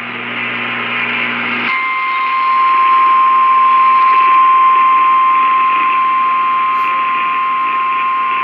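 A short hissing burst over radio static, then about two seconds in the steady single-pitch NOAA Weather Radio 1050 Hz warning alarm tone comes on and holds. It is the alert signal that precedes a broadcast tornado warning.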